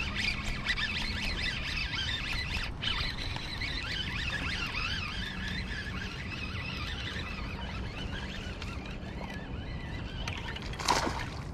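Baitcasting reel whining with a wavering pitch while a hooked bass is fought on a bent rod, fading after about eight seconds. A splash about eleven seconds in as the fish thrashes at the surface.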